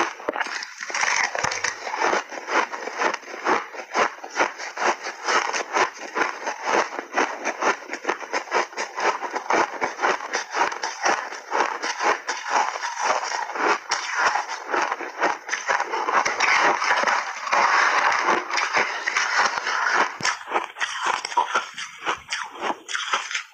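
Refrozen shaved ice being bitten and chewed: a steady run of rapid crunches, several a second.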